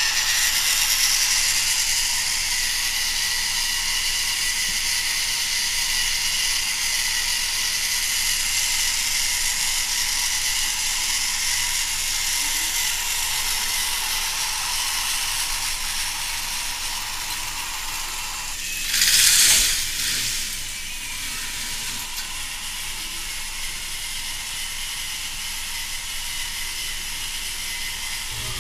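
K'nex roller coaster's motorized chain lift running steadily, the plastic chain and gears clattering. About two-thirds of the way through, a louder rush lasts about a second.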